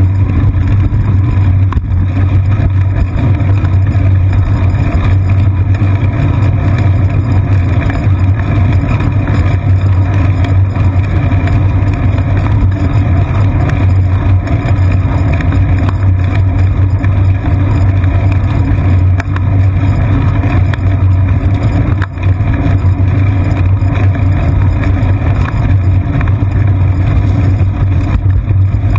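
Steady, loud low rumble of a bicycle riding along a street, picked up by a GoPro camera mounted on the bicycle's seat post, with one sharp knock about three quarters of the way through.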